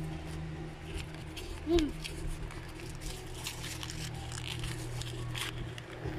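Paper crinkling and rustling as a small folded paper wrapper is handled and unfolded, with irregular crackles throughout. A brief voice sound about two seconds in, over a steady low hum.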